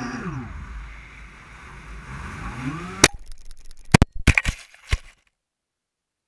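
Tricopter motors and propellers whining, pitch dropping as the throttle is eased off and then rising again, over low rumbling wind noise. About three seconds in it strikes the ground with a sharp crack, followed by a quick series of cracks and knocks as it tumbles, breaking two arms and a propeller; the sound cuts off suddenly about five seconds in.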